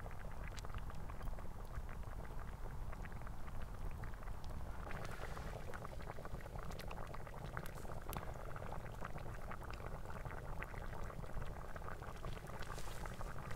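Thick tomato fish soup bubbling and popping at the boil in a pot over a crackling wood campfire, a steady bed of many small pops and clicks.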